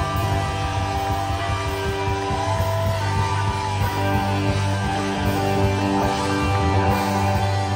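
Live rock band playing: electric guitars holding sustained notes over bass guitar and drums, with a guitar note bending in pitch about three seconds in.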